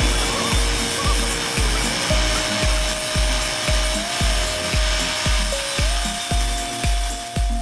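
Background music with a steady beat of about two thumps a second and a held melody line, over the rasp of an angle grinder's disc cutting into a steel rail.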